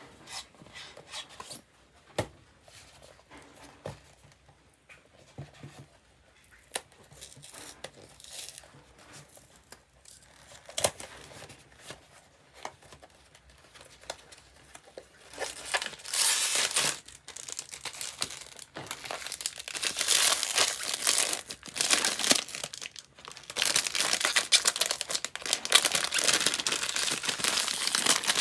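Cardboard blind box being opened by hand: scattered light taps and rustles of the flaps and inner card. About halfway in, the foil bag inside is pulled out and handled, and loud, dense crinkling of the foil takes over.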